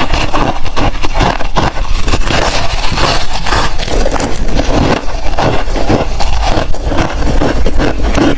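Close-miked chewing of hard freezer ice: a dense, continuous run of loud, sharp crunches and crackles.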